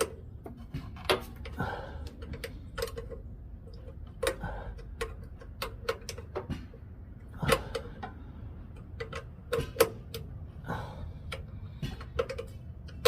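Irregular metallic clicks and taps of a wrench on a carburetor mounting nut and bolt on a small snowblower engine, as the nut is turned a little at a time.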